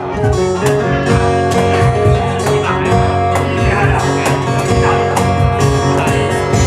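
Live band playing an instrumental song intro: guitar and bass over a steady beat.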